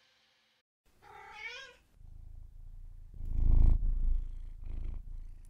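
An animal's short, wavering call, then a low, pulsing, purr-like rumble close to the microphone that is loudest about three and a half seconds in.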